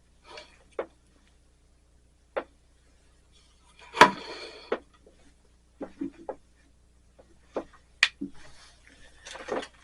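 Scattered clicks and taps from handling small cut stained-glass pieces and a roll of copper foil on a work table. There is one louder knock about four seconds in, a sharp click near eight seconds, and a brief rustle near the end.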